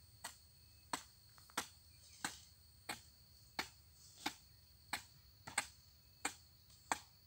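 A hoe blade striking hard, dry ground in a steady rhythm, eleven sharp strikes at about three every two seconds. A steady high shrill of insects runs underneath.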